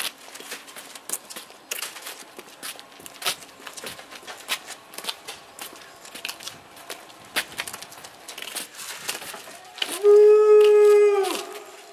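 Scattered crackling and clicking, then about ten seconds in a loud, steady horn blast lasting about a second and a half.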